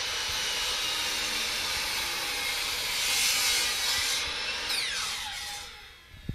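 Electric miter saw running at full speed, its blade cutting through a wooden board with a louder stretch about three seconds in. Then the trigger is released and the motor winds down with a falling whine near the end.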